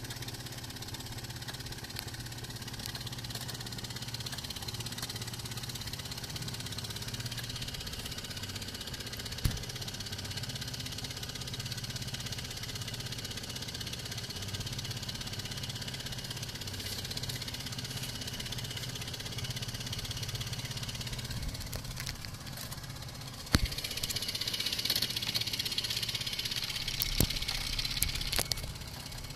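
A small boat's engine idling steadily with a low hum. Near the end a sharp click, then a louder high hiss with scattered clicks.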